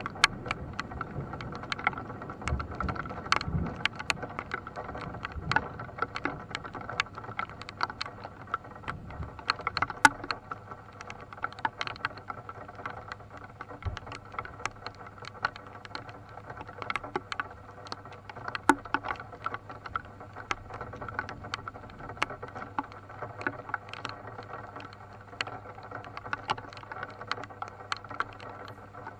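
Rain falling on a car's roof and windscreen, heard from inside the car as a steady hiss full of sharp, irregular drop impacts, with one loud hit about ten seconds in. A low rumble of thunder dies away in the first few seconds.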